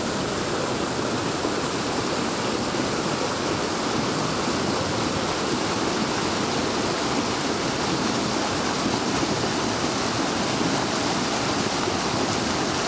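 River rapids rushing over rocks: a steady, even roar of white water.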